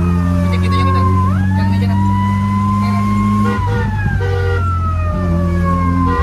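A siren wailing, its pitch sweeping up quickly and sliding slowly down, over steady low tones that shift in steps.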